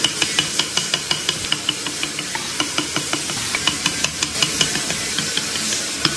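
Hand carving gouge cutting into a wooden block: a scraping hiss with a rapid, uneven series of small sharp clicks as the blade bites and chips break off.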